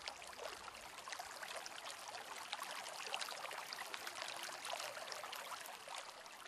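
Faint, steady background sound of running and falling water: a soft hiss with many tiny drips and ticks.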